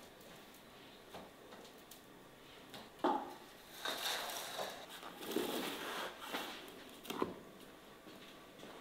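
Raw lamb chunks being handled in large enamel bowls: soft wet rustling of meat, with a sharp knock about three seconds in and another just after seven seconds.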